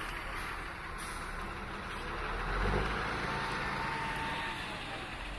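Engine of an off-road trial truck working under load as it crosses a steep dirt mound, swelling louder about halfway through and then easing off.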